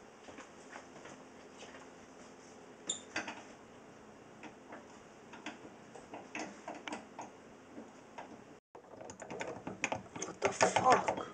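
Light clicks and knocks of small objects being handled, sparse at first, then a louder, denser clatter near the end after a brief gap.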